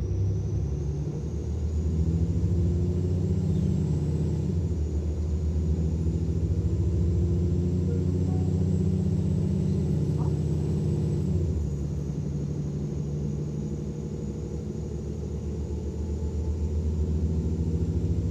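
Mercedes-Benz Citaro O530 LE bus's OM457 diesel under full-throttle kickdown: a loud, low engine drone with a high, thin turbo whine that climbs in pitch over the first few seconds, then holds. The whine steps down slightly past the middle, and the engine dips in loudness before building again near the end. The turbo whine is louder than is normal for these OM457 engines.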